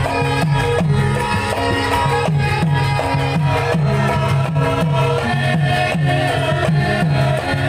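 Javanese gamelan music accompanying a lengger dance. Low drum strokes that drop in pitch repeat steadily under sustained metallophone tones.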